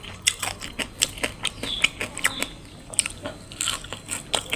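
Close-up crunching of crispy deep-fried shrimp being chewed, a rapid irregular series of sharp crackles.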